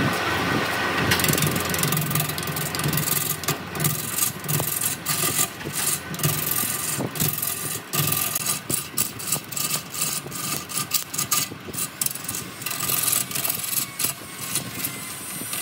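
Wood lathe running with a steady motor hum while a tool works the spinning wood, giving an uneven rasping scrape that swells and dips several times a second.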